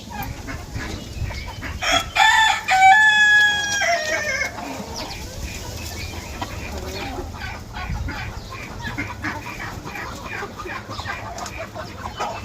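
A rooster crows once, about two seconds in, a long call held level and dropping at the end, over steady clucking from a flock of chickens.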